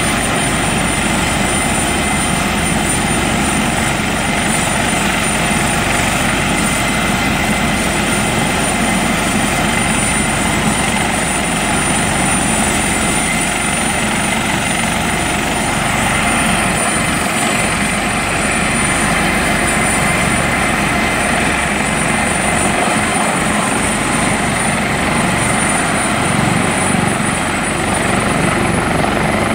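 A rescue helicopter's turbine engines and main rotor running steadily on the ground before takeoff: a dense rushing with a thin, high turbine whine that rises slightly near the end.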